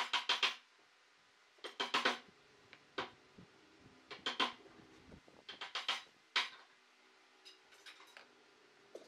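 Small wooden blocks knocking and clacking as they are set down and pushed into place on a glue-covered pine panel, in short clusters of quick knocks every second or two.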